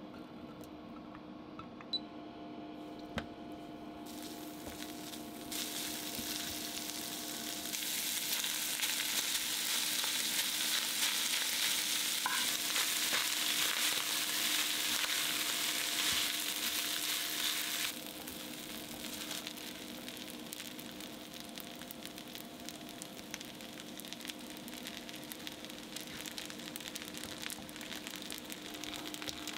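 Stir-frying in a nonstick frying pan: oil and gapao minced meat sizzling, then rice being stir-fried with a cooking spoon and beaten egg cooked half-set and mixed in. The sizzling builds a few seconds in, is loudest for about ten seconds, then drops to a softer level about eighteen seconds in. Two sharp clicks near the start and a faint steady hum underneath.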